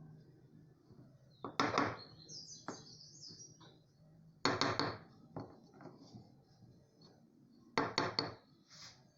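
Three short bursts of hard wooden clacking, each a few quick knocks, about three seconds apart, like small wooden pieces being knocked together or set down. Faint bird chirps come in between.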